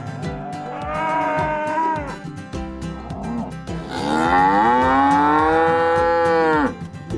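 Cow mooing: a short moo about a second in, then a long drawn-out moo from about four seconds in until near the end, its pitch rising and then falling.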